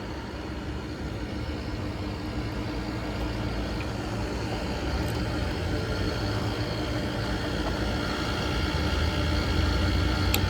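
Steady low mechanical rumble with a constant hum, slowly growing louder, and a sharp click near the end.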